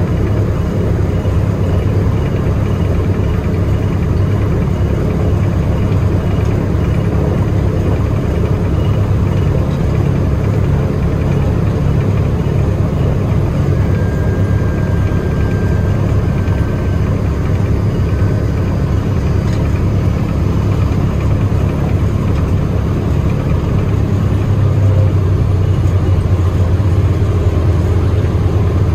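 Boeing B-17G Flying Fortress's Wright R-1820 Cyclone nine-cylinder radial engines running at low taxi power, a steady deep rumble heard from aboard the aircraft. It swells slightly louder near the end.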